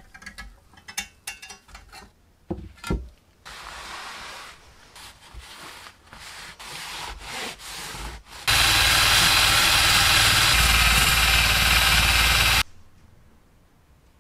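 Small clinks as a steel hand-saw blade is handled and lifted from a tank of electrolyte, then a cloth rubbing over the wet blade. About eight seconds in, a loud steady machine noise starts and runs for about four seconds before cutting off suddenly.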